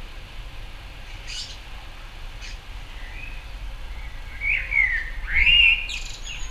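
Male common blackbird singing: two short high notes, then about two-thirds of the way through a loud fluty warbled phrase that ends in higher twittering.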